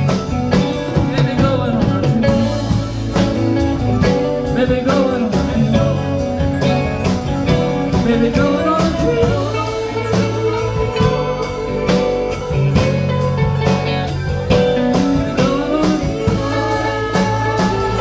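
Live rock band playing electric guitars, bass guitar, keyboards and drum kit, with a steady drum beat and bending lead-guitar lines over sustained bass notes.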